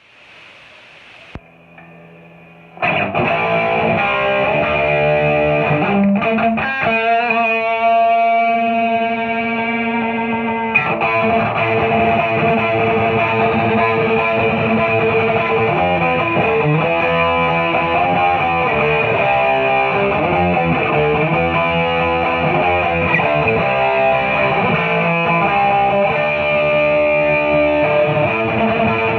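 Distorted electric guitar, a Gibson Les Paul Studio through a Boss SD-1 overdrive into a Marshall DSL40C amp, playing chords and riffs. Faint hiss and a click come first. The guitar comes in about three seconds in, with one long chord left ringing partway through.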